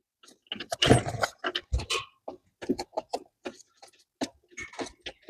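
Irregular light clicks and short scrapes of metal lifting rings being fitted by hand into a battery box, loudest about a second in.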